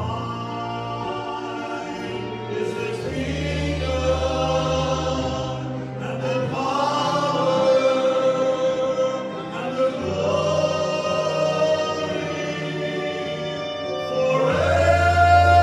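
Church congregation singing a worship song, voices holding long notes over an accompaniment with sustained low bass notes that change every second or two.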